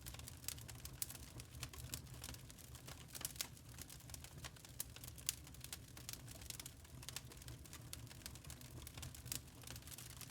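Wood burning in a fireplace, crackling: irregular sharp pops and snaps, some louder than others, over a low steady rumble.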